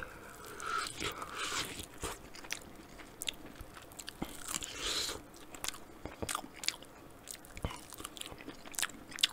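A chicken wing being bitten and chewed right at the microphone: irregular sharp clicks and crunches of teeth tearing meat off the bone.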